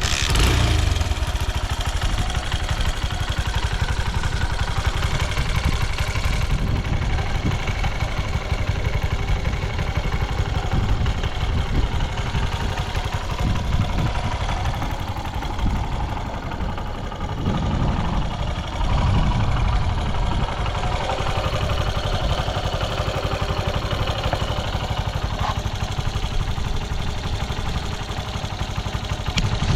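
Honda Ape 100's single-cylinder four-stroke engine running at idle, steady with a few small swells in level; the seller calls the engine good, with no abnormal noise.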